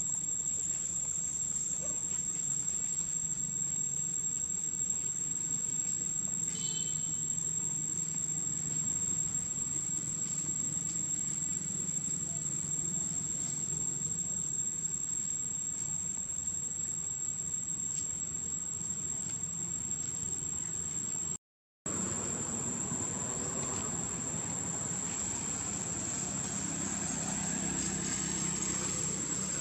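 Steady high-pitched insect buzz from the surrounding vegetation, one unbroken tone that runs on without pause, over a faint low rumble. The sound cuts out for an instant about two-thirds of the way through.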